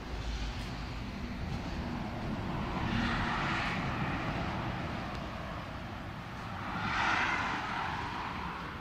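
Steady low rumble of traffic, with two vehicles passing by: the noise swells and fades about three and a half seconds in and again about seven seconds in.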